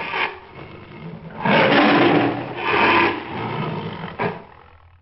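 Tiger roaring, loud roars about one and a half and three seconds in, then trailing off and fading out near the end.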